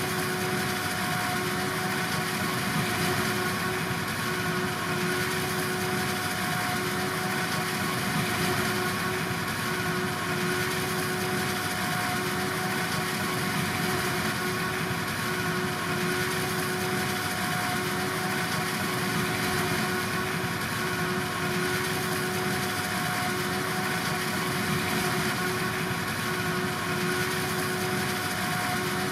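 Farm machinery at a maize silage harvest running steadily, a constant high whine over the engine noise.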